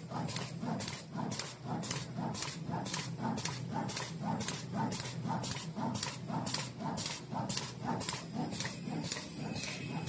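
Zipper-lock plastic bag making machine running, its film-feed and seal-and-cut cycle making a steady rhythmic clatter of sharp clicks with a pulsing low thud, about two and a half cycles a second.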